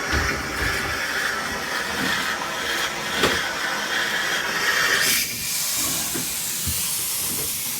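Compressed air hissing out through the water lines as they are blown out for winter. About five seconds in, the fuller part of the hiss drops away, leaving a thinner, higher hiss.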